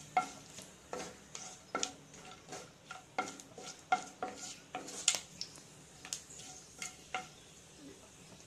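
Wooden spoon stirring whole spices (bay leaves, cinnamon, black peppercorns) in hot oil in a nonstick kadhai: irregular scrapes and taps of the spoon on the pan over a faint sizzle of the spices frying. The stirring stops a little before the end.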